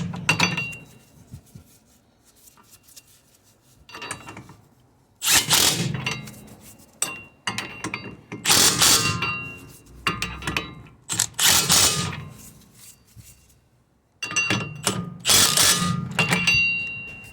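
A ratchet wrench running down the wheel-bearing hub bolts in about five short spells of one to two seconds each, with a metallic ring, as the bolts are snugged a little at a time, alternating across the hub.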